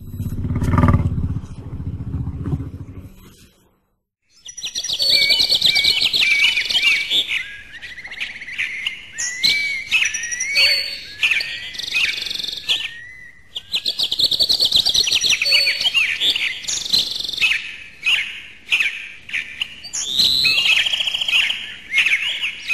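Many small birds chirping and twittering in overlapping calls, with quick rising and falling whistles, starting about four seconds in and pausing briefly twice. In the opening three seconds there is a loud low rumbling sound.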